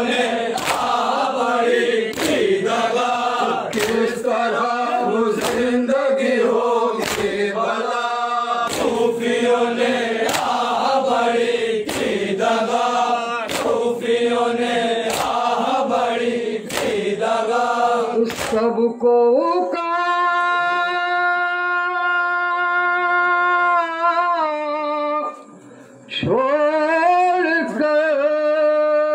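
Men's voices chanting a Shia noha (lament) in unison, with sharp hand-on-chest slaps of matam keeping time about once a second. A little past the middle the beating stops and a single voice holds long, steady drawn-out notes, breaking off briefly near the end and sliding back up into a held note.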